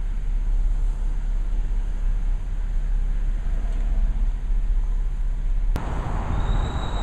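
Steady low outdoor rumble that changes abruptly to a brighter, noisier rumble near the end.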